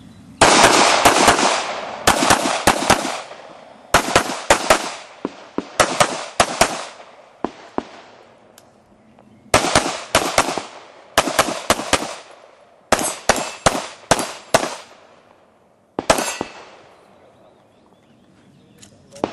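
Rapid gunshots fired in short strings of two to five shots, with brief pauses between strings as the shooter moves between targets. Each shot rings out with a short echo, and a last single shot comes about 16 seconds in.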